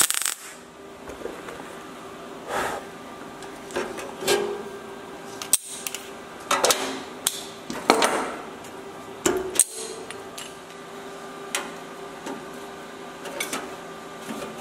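A MIG tack weld crackles and cuts off just at the start, then a run of irregular metallic clicks and clanks as locking welding pliers are handled and repositioned on the door's sheet metal, over a steady faint hum.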